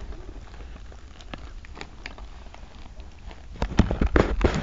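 Plastic shrink wrap being picked at and torn off a DVD case: scattered faint crinkles, then a run of sharp crackles near the end.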